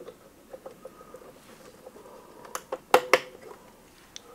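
Small clicks and taps of a battery being pushed into the battery holder inside a biometric pistol safe, ending in a few sharp clicks about three seconds in as it seats in the holder.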